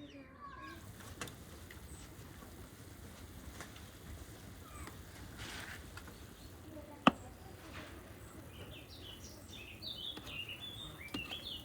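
Small birds chirping over a faint, steady outdoor background, the chirps thickest in the last couple of seconds. A single sharp knock about seven seconds in is the loudest sound.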